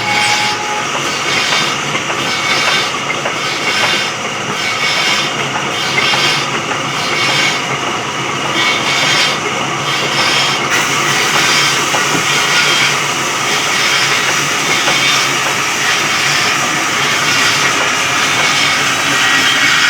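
Electric sawmill saw running and cutting through a log, a loud steady grinding. It pulses regularly, a little faster than once a second, for about the first ten seconds, then runs smoother.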